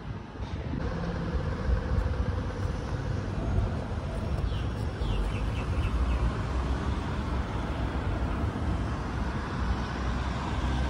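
City street traffic: a steady low rumble of passing cars and other road vehicles.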